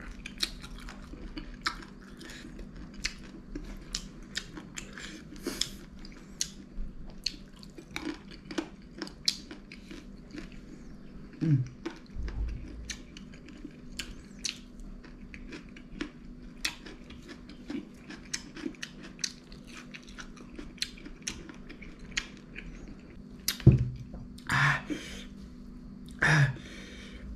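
Close-up chewing of spicy chicken feet: many sharp, wet clicks and smacks of lips, teeth and gristle, with a short hum partway through. Near the end come a few louder breathy puffs, the eater reacting to the heat.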